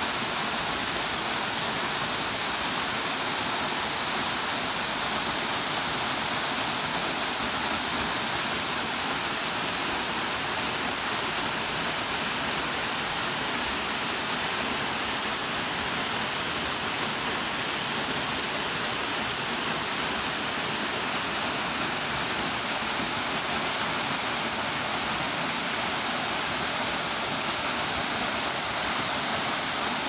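Waterfall pouring down a rock cliff: a steady, even rush of falling water, more hiss than rumble.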